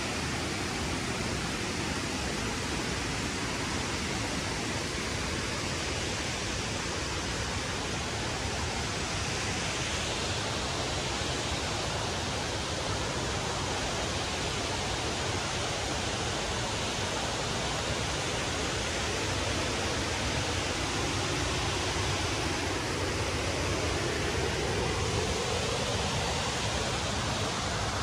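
Steady rushing of waterfalls, a constant even noise of falling water without breaks.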